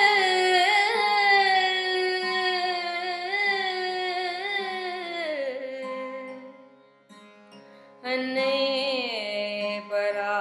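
A woman singing in Carnatic style over a steady drone, holding one long note with quivering ornaments before sliding down and fading around six seconds in. After a brief lull where only the drone sounds, she starts a new phrase on the word 'annai' about eight seconds in.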